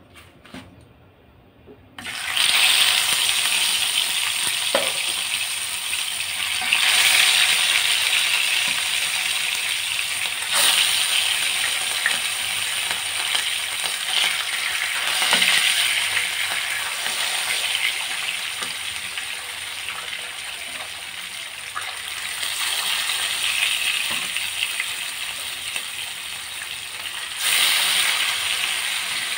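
Rohu fish steaks sizzling in hot oil in a karahi. The sizzle starts suddenly about two seconds in as the first fish goes into the oil, then swells again several times as more pieces go in, with occasional taps of a wooden spatula.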